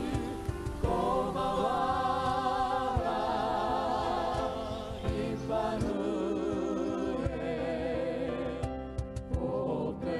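Background music of voices singing held notes with vibrato, choir-like.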